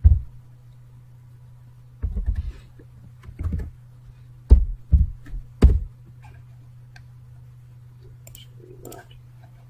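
A handful of heavy, thudding keystrokes on a computer keyboard as a short terminal command is typed and entered, over a steady low electrical hum. Lighter clicks come near the end.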